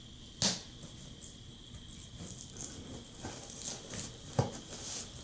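Scissor points stabbing and scraping at the packing tape on a cardboard box. A sharp tap comes about half a second in, then scattered small scratches and ticks, then another sharp tap near the end.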